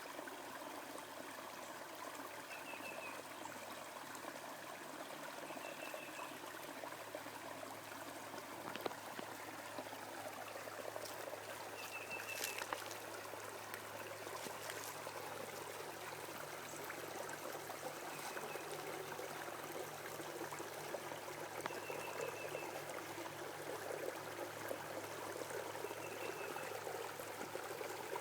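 Small brook babbling and trickling steadily, with a short high chirp recurring every few seconds.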